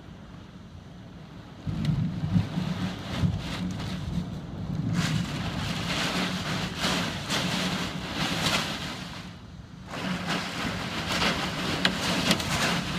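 Storm wind gusting hard with rain, buffeting the microphone with a low rumble. It picks up sharply about two seconds in, eases briefly near ten seconds, then comes back.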